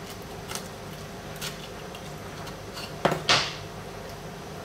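A kitchen knife knocking twice on a wooden cutting board about three seconds in, the second knock trailing into a short scrape, after a couple of faint clicks. A steady low hum runs underneath.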